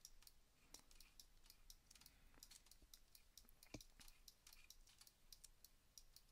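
Faint, irregular clicking from a computer mouse and keyboard, about three clicks a second, one slightly louder about two-thirds of the way through.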